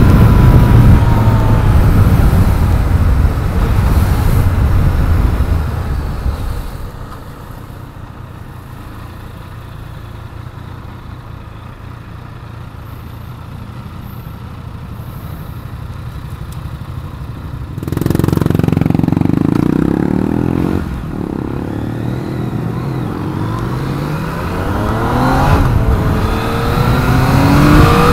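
Yamaha MT-09's three-cylinder engine and wind noise heard from onboard: riding and slowing, dropping to a quieter idle for about ten seconds while stopped, then pulling away with revs rising through the gears.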